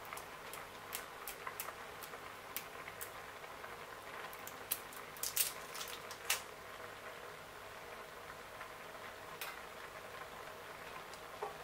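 Pot of eru and water leaves cooking on the heat: faint scattered ticks and pops over a low steady hiss, the loudest few between about five and six and a half seconds in.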